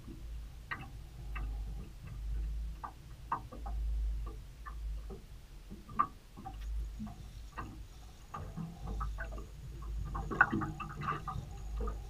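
Small fishing boat ambience: light, irregular clicks and taps from the angler's tackle and the boat while a lure is worked from the bow, over a low, swelling wind rumble on the microphone. A cluster of louder clicks comes near the end as the rod is lifted.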